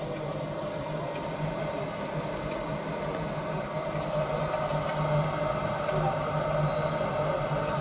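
Rotondi garment press running: a steady mechanical hum with a low drone and a higher steady tone.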